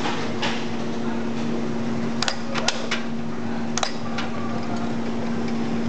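Electric chain hoist humming steadily as it runs, with a few sharp clicks between about two and four seconds in.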